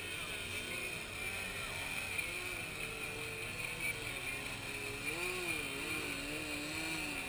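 Several glow-engine RC aerobatic airplanes hovering nose-up together, their engines running as one steady drone. The pitch wavers up and down as the pilots work the throttle to hold the hover.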